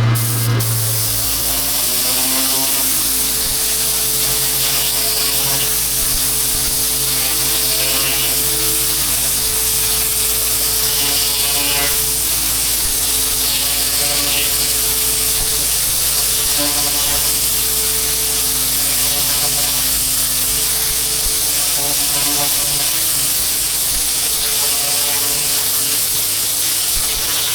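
Pressure washer's engine running steadily at set revs, with a constant hiss over it, while the machine fills with water.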